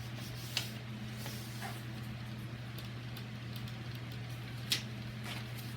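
Paper drilling template being handled and creased against a framing square: faint rustles with two short sharp ticks, about half a second in and near the end, over a steady low hum.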